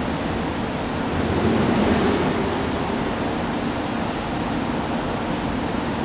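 Steady industrial drone of a factory floor: even noise with a faint low hum under it, swelling slightly about a second and a half in.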